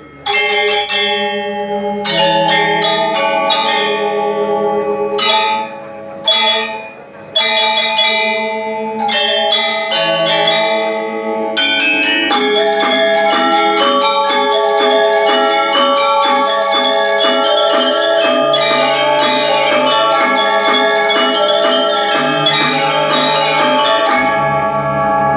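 An ensemble of tuned, bell-like percussion instruments playing a melody with chords, some notes held with a fast shimmering tremolo; the playing grows fuller partway through.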